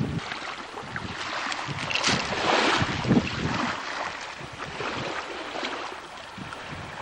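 Wind buffeting the microphone over open water, with the rush of waves beneath it. The hiss swells briefly about two seconds in.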